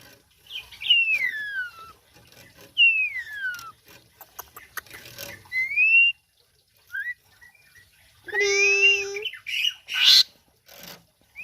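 Pied starling (jalak uren) singing in full voice. It gives loud whistled notes, mostly sliding down in pitch and one sliding up, then a harsh buzzing note followed by raspy squawks about eight to ten seconds in.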